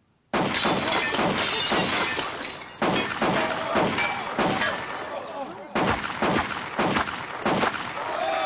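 Gunshots from a sharpshooting act with targets shattering. A dense run of sharp cracks starts suddenly, then separate shots follow about every half-second to a second, each with a breaking, shattering sound.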